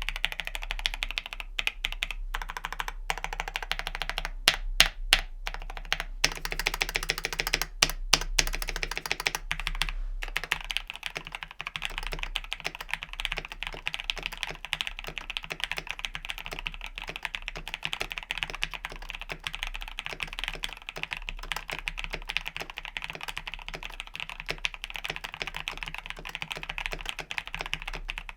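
Mechanical keyboard with lubed and filmed Gateron Ink Black V2 linear switches being typed on. For roughly the first ten seconds there are single, spaced key presses, then fast continuous typing.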